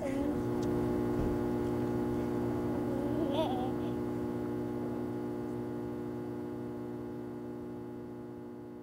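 A steady electronic drone of several held tones, starting abruptly and fading slowly toward the end. A child's faint voice rises briefly near the start and again about three and a half seconds in.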